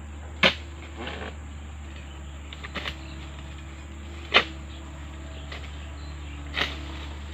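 Pole-mounted harvesting chisel striking into the frond bases of an oil palm: four sharp chops a couple of seconds apart, the first and third the loudest, over a low steady hum.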